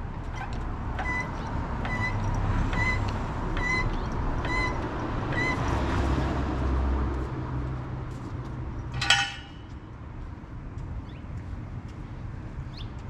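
Hydraulic floor jack being pumped by its long handle, squeaking once on each stroke: six or seven short squeaks about a second apart, then they stop. About nine seconds in comes one loud, short, high ringing sound, over a steady low rumble.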